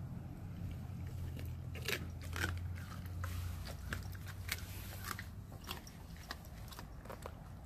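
A Blue Bay Shepherd chewing a raw chicken leg quarter: irregular wet bites and bone crunches, a dozen or so, most closely bunched from about two to five seconds in. A steady low hum runs underneath.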